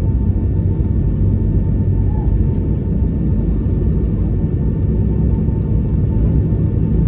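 Jet airliner's engines and airframe giving a steady low rumble, heard from inside the passenger cabin, with a faint steady whine above it.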